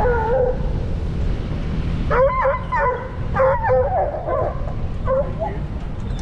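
Coyote hounds baying: a short call at the start, then a run of wavering, pitched bawls from about two seconds in, over a steady low rumble.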